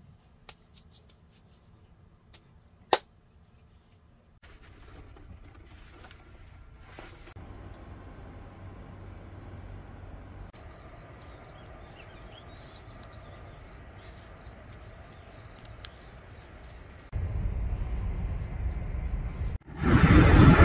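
A few sharp clicks of small objects handled on a table, the loudest about three seconds in. Then outdoor ambience with faint bird chirps, and near the end a louder low rumbling noise.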